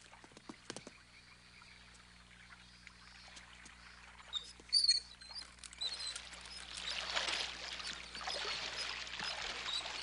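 Cartoon sound effects of a paddle boat setting off: a few faint knocks, then water splashing and churning that grows louder over the last four seconds.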